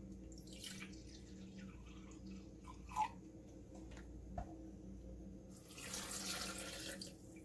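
Vinegar poured from a plastic gallon jug into a glass measuring cup, then, from about six seconds in, a louder, longer pour from the cup into a blender jar. A sharp clink about three seconds in.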